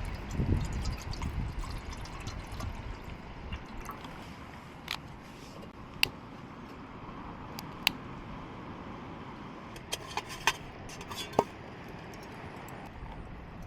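Liquid being poured and sloshing in camp cookware, with a handful of sharp clinks of utensils on the pot or plate. Wind rumbles on the microphone in the first couple of seconds.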